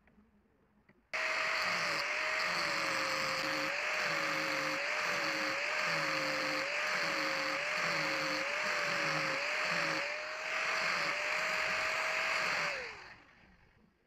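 Handheld power tool with a sanding drum switched on about a second in, grinding a metal trigger piece clamped in a vise: a steady motor whine under gritty sanding noise that sags and recovers about once a second as the drum is pressed into the metal. Near the end it is switched off and the whine falls as it spins down.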